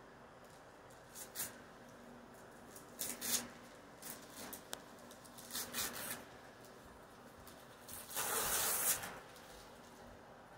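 Wrapping paper on a gift box being torn and crinkled by a toddler: a series of short rips and rustles, then a longer tear of about a second near the end, the loudest of them.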